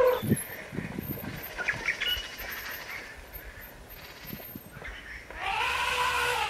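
African elephant trumpeting. The end of one call glides down at the very start, then a second, shorter call about five seconds in rises and falls in pitch and is the loudest sound.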